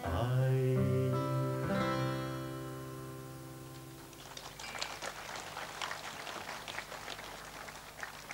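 Last strummed chords on an acoustic guitar ringing out and fading at the end of a song, then an audience applauding from about four seconds in.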